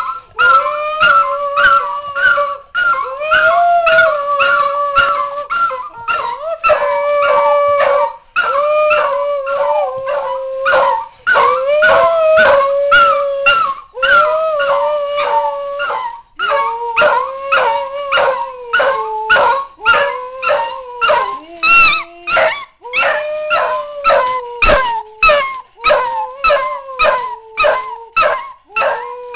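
A dog howling in long, wavering held notes, with a man howling along with it. The howls are long in the first half and become shorter, about one a second, later on, with many brief sharp clicks between them.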